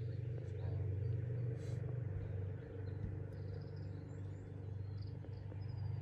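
Steady low engine hum, a motor running evenly, with a few faint bird chirps a few seconds in.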